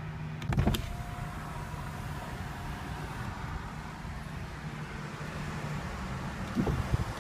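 A car's electric power window running for about six seconds, with a clunk as it starts about half a second in and clunks again as it stops near the end.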